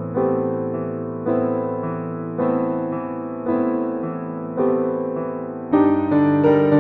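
Background music: slow electric piano chords, a new chord struck about once a second and left to fade, growing fuller and brighter near the end.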